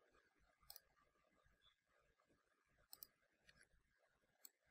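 Near silence, broken by a handful of faint, sharp computer mouse clicks as dimensions are placed in CAD software.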